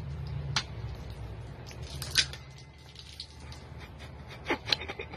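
A can of beer being shotgunned: steady fast gulping and gurgling as the beer pours from a hole punched in the side of the can. A few sharp clicks cut through, the loudest just after two seconds in and a cluster near the end.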